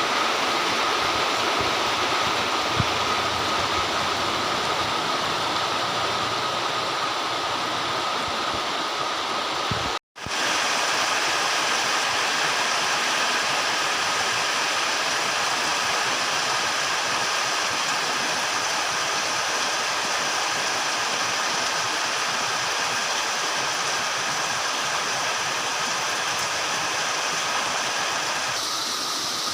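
Heavy, torrential rain falling in a steady, loud hiss. About ten seconds in, the sound cuts out for a split second, then resumes unchanged.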